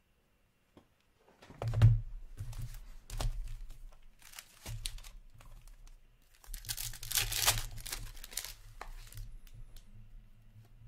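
A 2022-23 Upper Deck Series 2 hockey card pack being torn open and its wrapper crinkled, with handling knocks and rustles. The longest and loudest rip comes about two-thirds of the way through.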